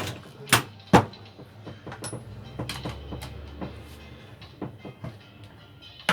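Sharp knocks and clicks of parts and tools being handled on a workbench, two loud ones about half a second and a second in, then scattered lighter clicks.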